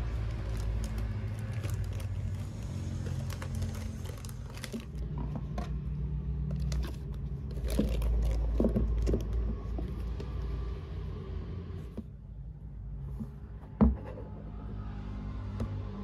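Steady low rumble of road traffic from a nearby street, under the clicks and rustle of disposable face masks and a plastic mask box being handled, with one sharp knock a little before the end.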